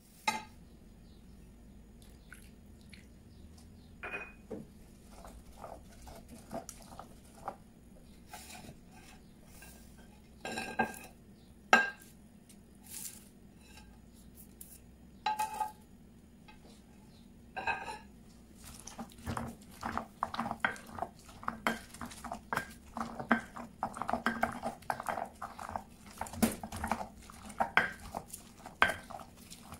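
Scattered knocks and clinks of ingredients and a plate against a stone molcajete. From about two-thirds through comes a fast run of knocks and grinding as the stone pestle crushes roasted tomatillos, chiles and onions in the mortar.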